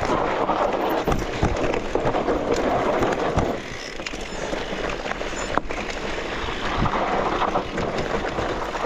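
Mountain bike riding over a dirt trail: steady rumble of tyres and wind buffeting the camera microphone, with frequent short knocks and rattles from the bike over rough ground.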